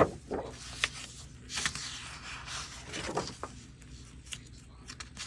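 Loose paper pages being handled and slid over one another: soft scrapes and rustles with a few light clicks.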